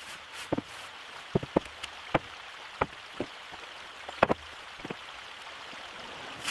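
Rain falling steadily, with scattered louder drops tapping irregularly.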